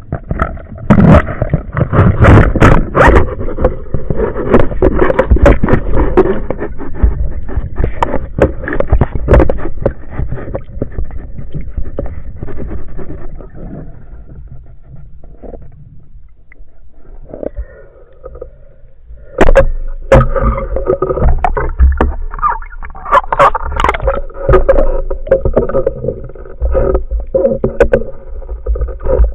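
A boat under way on the water: a motor running under a loud low rumble and rapid knocks and slaps. It eases off about halfway through, then picks up again about two-thirds of the way in with a steadier pitched hum.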